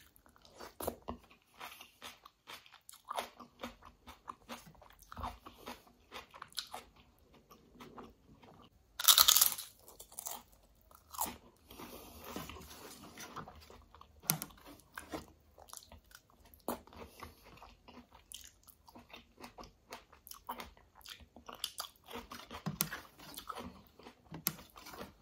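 Close-up eating sounds of kadhi chawal eaten by hand: chewing and crunching, lip smacks and wet squelches of fingers mixing rice into the curry, in short irregular clicks. One louder, noisy burst comes about nine seconds in.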